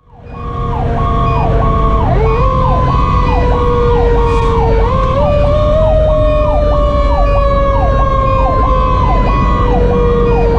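Fire engine sirens running together: an electronic siren sweeping quickly down and up about twice a second, over a Federal Q2B mechanical siren holding a steady wail that steps up in pitch twice and then slowly sags. The truck's diesel engine and tyres rumble underneath.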